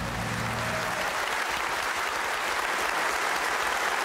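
Audience applauding steadily, with a low hum fading out about a second in.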